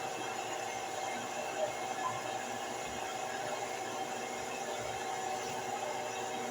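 Steady machine whir and hiss with a constant hum and no change in pitch or level.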